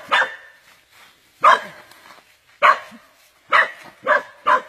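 A dog barking, about six short sharp barks at uneven intervals.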